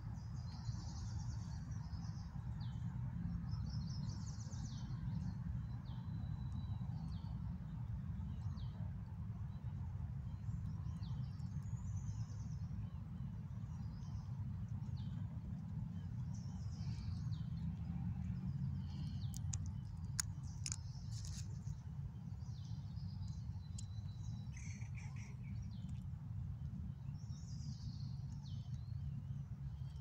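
Birds chirping in short, repeated calls over a steady low rumble of outdoor background noise, with a few sharp clicks about twenty seconds in.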